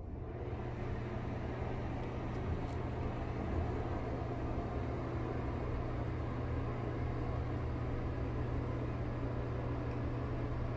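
Old Broan ceiling exhaust fan running: a steady low motor hum under a broad rush of moving air, growing a little louder over the first couple of seconds and then holding steady.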